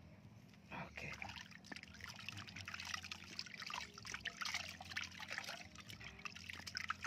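Water splashing and trickling in a plastic tub as a soapy kitten is dipped and rinsed in it, starting about a second in and going on unevenly.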